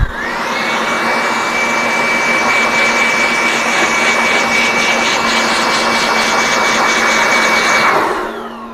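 Motor-driven air blower cooling a freshly desoldered chip: a steady rush of air with a motor whine that rises as it spins up and falls away as it stops about eight seconds in.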